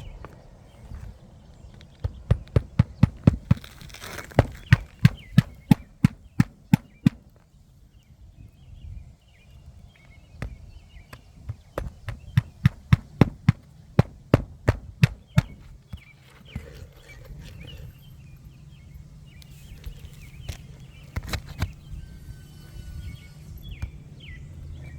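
Hammer driving roofing nails into asphalt shingles: two runs of sharp, quick strikes at about three a second, each lasting about five seconds, followed by a few quieter knocks.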